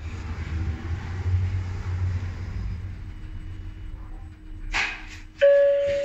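Techwind glass passenger lift travelling up: a low rumble of the moving car, a knock as it stops at the floor near the end, then a single steady arrival beep, the loudest sound.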